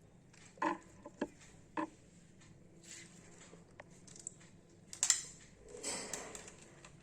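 Light clicks and knocks of hands and tools working wire onto the terminals of an electrical switch board: three sharp clicks in the first two seconds, then a louder rustle and scrape about five seconds in.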